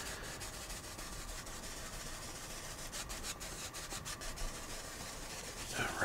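Paintbrush scrubbing oil paint into canvas, a soft, steady rubbing as red is blended into the wet yellow of the sky.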